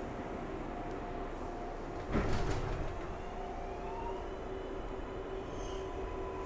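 Inside an R142A subway car in motion: steady rumble of wheels on rail under the electric whine of the traction motors, which rises in pitch from about four seconds in as the train gathers speed. A sudden loud clunk about two seconds in.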